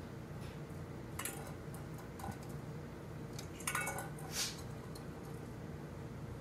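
Starlings pecking and knocking at a metal bowl of dry cat food: a few short, faint clinks and clicks over a steady low hum, the loudest cluster a little under four seconds in.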